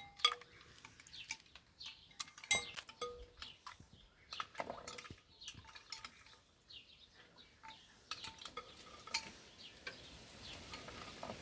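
Cutlery and dishes clinking and tapping: scattered light knocks and short ringing clinks, some close together.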